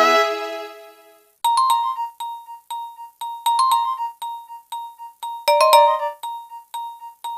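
Nokia 2600 mobile phone ringtones. A held chord from one polyphonic tune fades away, and about a second and a half in, a new tune starts. It is made of short, crisp keyboard-like notes, mostly on one pitch with higher notes between them, repeating a phrase about every two seconds.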